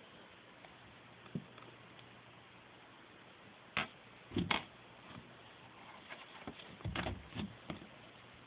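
A cat's paw batting at a small toy through the gap under a door, on a wooden floor: scattered soft taps and thumps, with a few in quick succession about four seconds in and another cluster around seven seconds.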